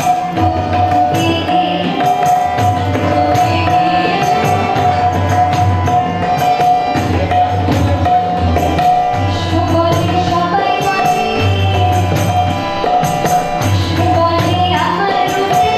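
A woman singing a song in Bengali to her own harmonium, whose reeds hold steady chords under the voice. Hand percussion with jingles keeps time in the background.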